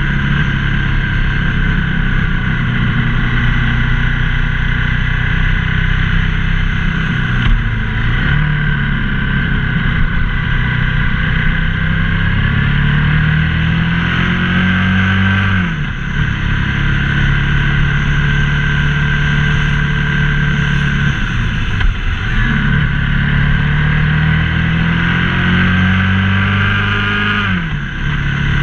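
Ducati ST4S's 90-degree V-twin engine under way, heard from onboard with wind noise: its pitch climbs steadily as the bike accelerates, then falls sharply as the throttle closes, about four times.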